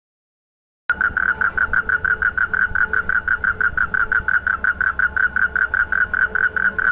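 Black-spectacled toad (Asian common toad) giving its mating call: a loud, steady trill of about seven pulses a second, starting about a second in.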